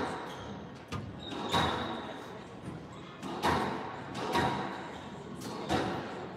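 Squash ball struck by rackets and rebounding off the court walls during a rally: a sharp, echoing crack every second or two, five loud ones in all, with a few fainter knocks between them.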